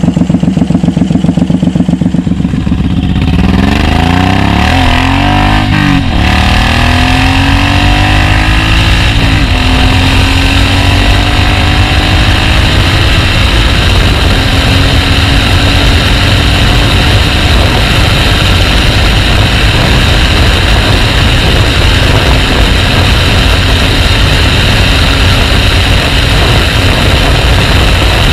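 Cruiser motorcycle's V-twin engine idling with an even pulse, then accelerating, its pitch climbing and dropping through several gear changes over the next several seconds. It then settles into steady cruising, with wind rushing over the microphone.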